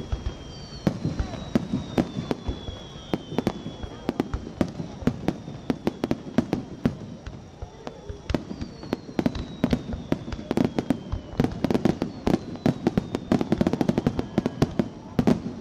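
Fireworks display: a dense, irregular run of sharp bangs and crackling from bursting aerial shells. Several long, slowly falling whistles run through it.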